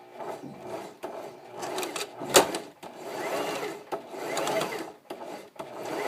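Singer Heavy Duty sewing machine running in several short runs of about a second each, with one sharp, loud knock about two and a half seconds in. A loud, annoying sound that is not normal for the machine, which is failing to sew the fabric and cutting off the thread.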